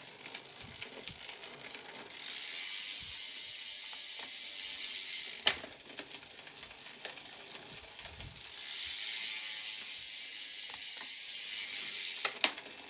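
Trek Emonda's Shimano Ultegra drivetrain with the wheel spinning: a fast, high-pitched ratcheting buzz from the rear freehub in two stretches of about three and a half seconds. Each stretch ends in a sharp click, and lighter clicks from the chain and gear changes come in between.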